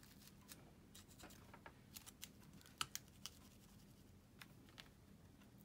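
Near silence with faint, scattered light clicks and paper rustles of fingers pressing a paper flower into glue on a cardstock card. There are a couple of slightly louder ticks about three seconds in.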